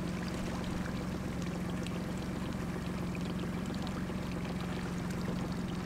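Boat engine idling steadily with a low hum, while water laps and trickles against the hull.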